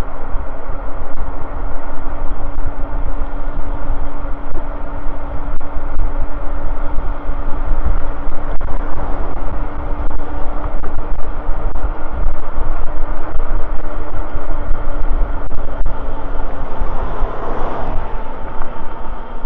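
Wind buffeting the microphone of an e-bike camera while riding on pavement, with a steady motor hum. There is a brief swell of noise near the end.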